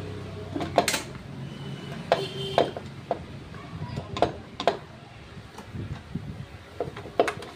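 Sharp metallic knocks and clanks, about a dozen, one with a short metallic ring about two seconds in, as the kick lever and kick-start side transmission cover of a TVS Jupiter scooter are handled and pulled off.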